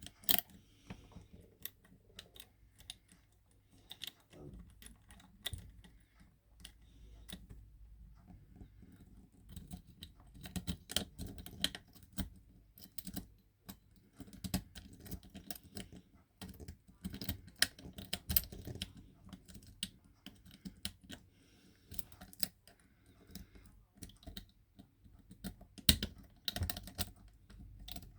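Hook pick working the pins of a Yale-profile pin-tumbler rim cylinder under light tension: irregular small metallic clicks and ticks, coming in clusters.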